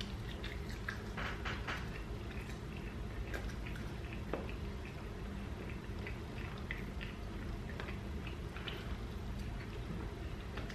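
A man chewing food close to the microphone, with many small wet mouth clicks and smacks and the odd light click of a plastic fork in the food, over a steady low hum.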